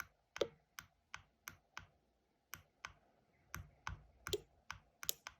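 Small tactile push-buttons clicking as they are pressed in quick succession, about fifteen short sharp clicks with a short pause about two seconds in.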